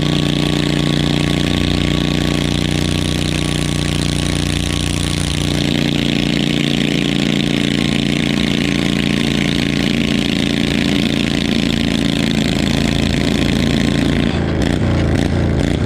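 Stock garden tractor engine running hard and steady under load as it drags a weighted stoneboat on a chain. Near the end the engine note starts to waver up and down.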